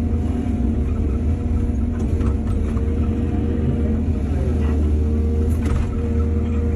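Excavator's diesel engine running steadily, with a few short knocks about two seconds in and again near the end.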